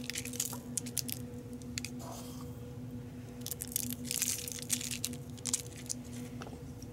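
Soft, scattered ticks and rustles as kosher salt is sprinkled over oiled zucchini and yellow squash slices on a lined sheet pan and the slices are shifted by hand. A faint steady hum runs underneath.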